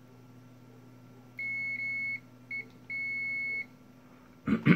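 Continuity buzzer of a Vici VC837 (Proster) digital multimeter giving steady high beeps in three spells, two of them under a second long and one brief, as the test-lead tips are touched together. A short knock near the end.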